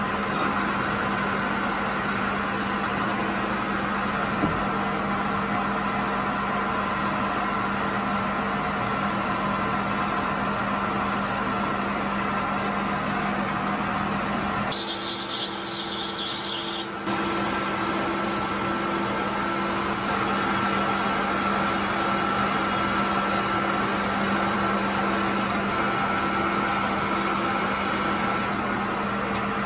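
Mini metal lathe running steadily: a constant motor hum with a thin whine over it. About halfway through, a higher hiss briefly takes over for about two seconds.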